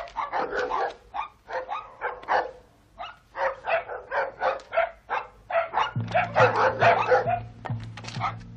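Dogs in kennels barking and yapping over one another in quick, repeated barks. Low sustained music notes come in about six seconds in.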